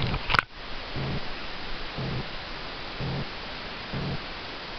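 Domestic cat purring close up, a low rumble that swells about once a second with each breath, over a steady hiss. A single sharp click just before half a second in.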